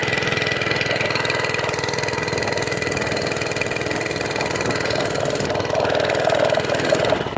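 An engine running steadily with an even, rapid pulsing, changing just before the end.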